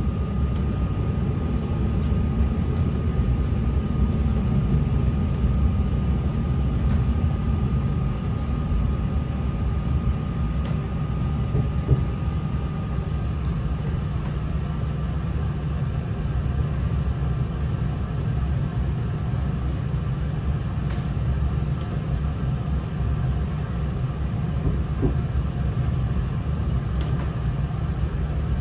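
Steady low rumble of a Class 3000 (C3K) diesel multiple unit under way, heard from inside the carriage: underfloor diesel engine and wheels on rail, with a faint steady whine that fades out about halfway and a few light clicks.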